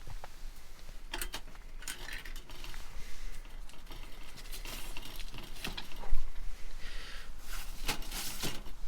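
Irregular clicks, crackles and short rustling bursts from cooking at a small titanium wood stove while burritos are warmed on it.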